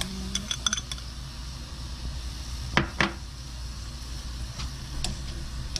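Small clicks and taps of a spoon against a pan as seasoning paste is scraped onto chicken in water, with two sharp taps about three seconds in, over a steady low hum.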